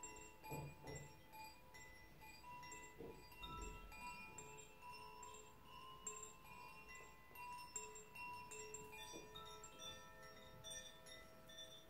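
A hand-held cylindrical wind chime, swung gently on its cord, rings softly: many clear tones sounding and fading one after another, overlapping. A couple of low soft thumps come in the first few seconds.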